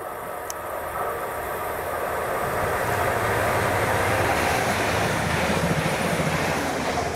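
A train passing on the line. Its rolling noise swells over the first few seconds, then holds steady, with faint steady tones over the rush.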